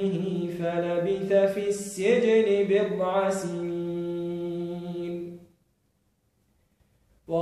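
A man reciting the Quran in Arabic in melodic tajwid chant, his voice moving between held notes and ending on a long steady note. He breaks off about five and a half seconds in for a silent pause of nearly two seconds, then starts the next verse.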